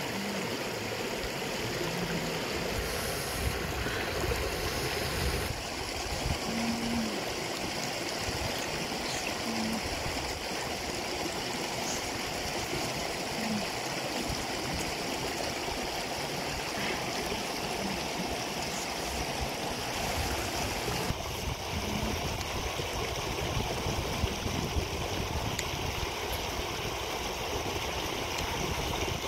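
Shallow river flowing over rocks and small rapids: a steady rushing, babbling water noise.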